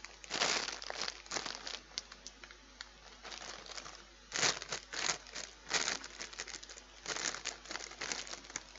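Plastic crisp multipack bag crinkling in irregular bursts as it is turned over in the hands.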